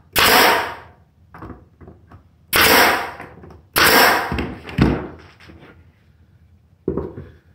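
Pneumatic nail gun firing three times into wooden boards, fastening a roof board onto a box. Each shot is a sharp crack with a short rush of air. A softer knock comes about a second after the last shot and another near the end.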